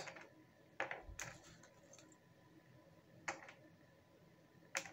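Cardboard jigsaw pieces clicking and a plastic bag crinkling as a hand sifts through the loose pieces, in about four short, faint rustles.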